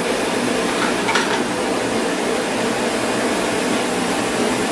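LPG gas burner running with a loud, steady hiss. A brief clink comes about a second in.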